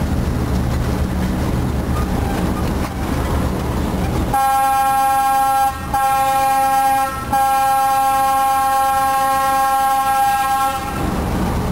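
D12E diesel locomotive's horn heard from inside the cab: a steady, loud chord of several tones, broken off twice very briefly after about a second each time, then held for several seconds. Before the horn and after it, the low rumble of the running locomotive fills the cab.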